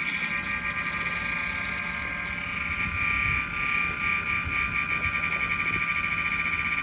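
Small bladeless stroller fan's motor running steadily, a high-pitched whine with a low hum beneath it.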